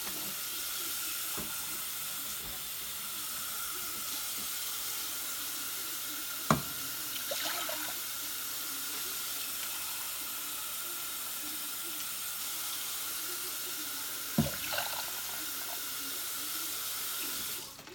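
Kitchen tap running steadily, switched on and off abruptly, with two sharp knocks, one about six seconds in and another about three quarters of the way through.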